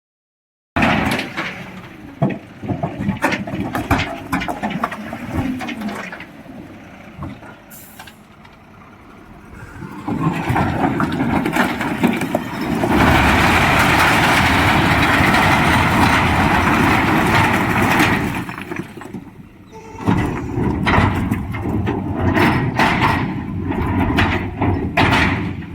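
Heavy boulder-laden lorry with many metal knocks and clanks over a running engine, and a loud stretch of dense rumbling noise lasting several seconds in the middle.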